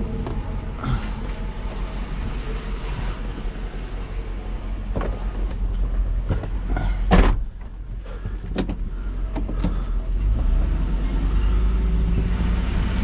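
Vehicle engine running, with a few knocks and one loud bang about seven seconds in. The engine sound grows louder and steadier near the end.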